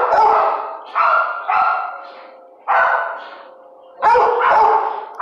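A dog barking loudly, about six barks, several coming in pairs about half a second apart, each echoing as it fades.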